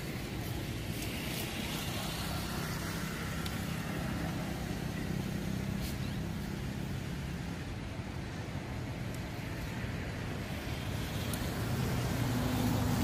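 Steady low rumble of distant road traffic. An engine hum fades out around seven seconds in, and another builds near the end.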